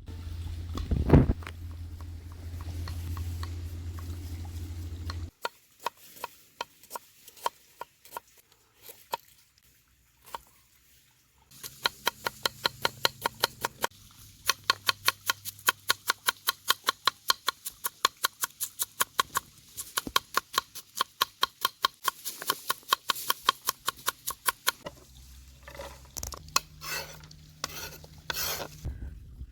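Hand food preparation with a kitchen utensil: a few scattered clicks, then a long, even run of sharp taps at about three a second, with a few louder strikes near the end. A low hum and one loud knock come in the first few seconds.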